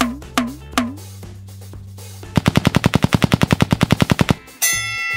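Edited cartoon impact sound effect: a rapid-fire string of sharp hits, about a dozen a second for two seconds, as the monster's hammer-fist pummelling attack. It follows a few beats of a drum track and is followed by a bright ringing tone starting near the end.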